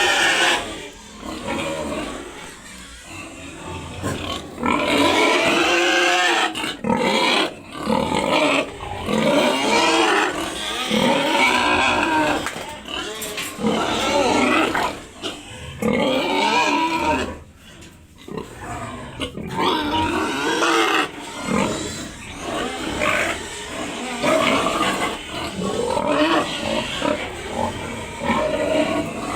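Pigs squealing over and over in loud, pitched calls about a second long, with short pauses between them.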